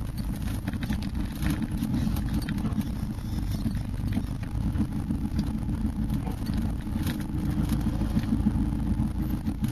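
4x4's engine running at low speed, a steady low rumble heard from inside the cab as it crawls along a rough, rutted dirt track, with occasional knocks and rattles from the bumpy ground.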